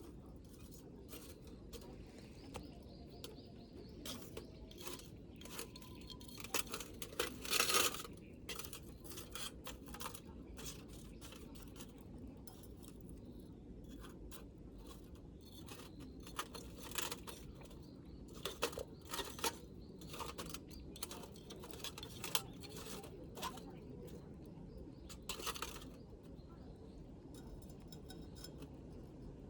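Scattered clicks, taps and light clinks of small objects being handled, with a loud cluster about eight seconds in, over a steady low background rumble.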